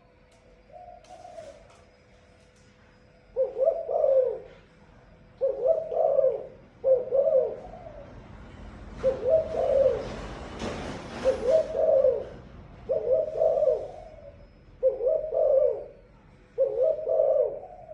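Dove cooing: a faint coo about a second in, then a run of about eight loud coos, one every second or two. A rushing noise swells up and dies away between about 9 and 12 seconds in.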